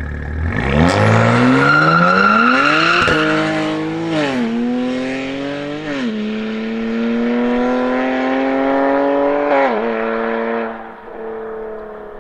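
BMW M performance car accelerating hard through the gears. Engine pitch climbs and drops sharply at each of four upshifts, then the sound dies away near the end.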